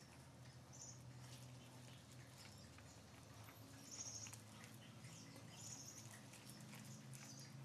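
Near silence: a faint steady low hum with scattered soft ticks and a few faint, short high chirps.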